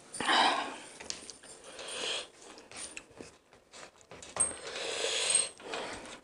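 Hands tearing apart a whole crispy fried chicken: crackling rips of fried skin and meat in three bursts, the loudest about half a second in, another around two seconds, and a longer one of over a second near the end.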